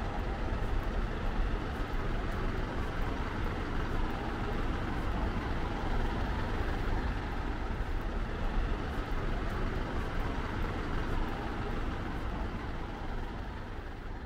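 Street traffic: a steady rumble of road vehicles, easing off slowly near the end.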